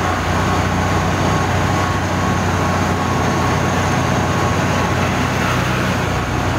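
Auto-rickshaw engine running steadily at cruising speed, heard from inside the open-sided cab together with road and wind noise.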